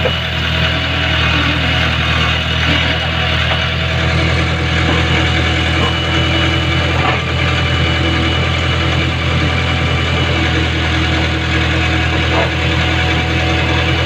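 JCB backhoe loader's diesel engine running steadily, heard close up from the operator's seat.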